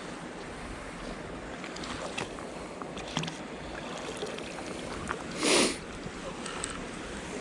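Steady outdoor wind and water noise with a few light clicks, and a brief loud rush of noise about five and a half seconds in.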